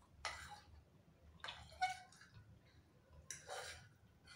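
Quiet eating sounds: instant noodles slurped off forks in three short wet bursts, with a sharp click just before two seconds in.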